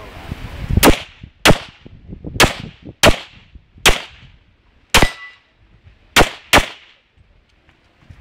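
Eight handgun shots at uneven intervals over about six seconds, each a sharp crack, the last two close together.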